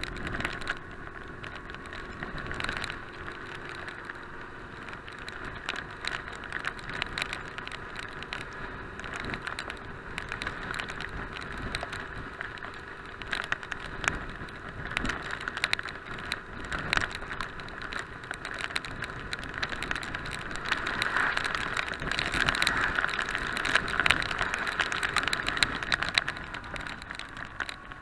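Rain ticking on a bike-mounted camera over the wind and tyre noise of a 1998 BMW R850R on a wet road, with the low steady running of its flat-twin boxer engine underneath. The noise swells louder for several seconds in the last third, then eases near the end.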